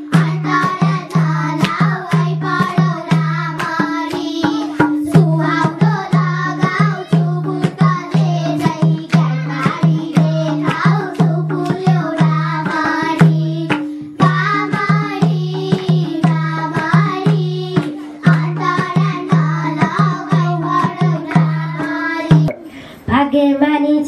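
Young girls singing a Nepali folk dohori song in unison, with a hand drum keeping a steady beat. The music breaks off briefly near the end.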